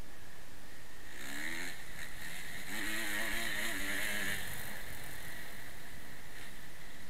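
Kawasaki motocross bike's engine revving up and down as it is ridden hard over a dirt track, under steady wind rush on the helmet-mounted camera. The engine note swells about a second in and again from about three to four and a half seconds in.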